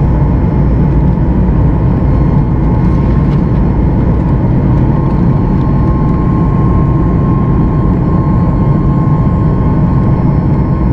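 Boeing 737 MAX 8's CFM LEAP-1B turbofans at climb power, heard inside the cabin beside the engine: a loud, steady jet noise with a thin high tone running through it.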